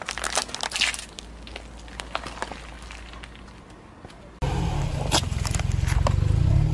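Plastic margarine tub cracking and crackling under a car tyre in the first second, then quieter. About four and a half seconds in, a much louder low rumble of the car rolling close by, with a few sharp clicks as the tyre crushes a plastic packet.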